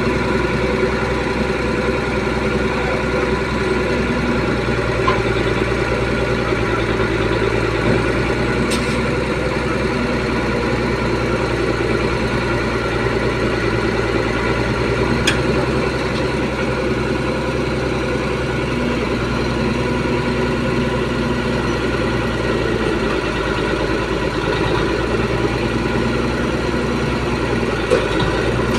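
Heavy diesel engine of a logging machine running steadily at an even speed, with a few brief clicks.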